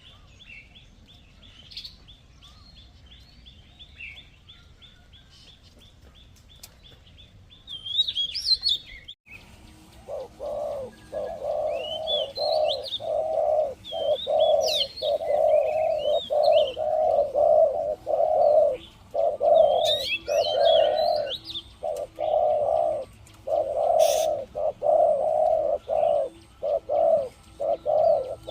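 Spotted dove cooing loudly in a long run of quick repeated notes, starting about a third of the way in after a brief break. Small birds chirp at a higher pitch throughout, and before the cooing starts they are the only sound.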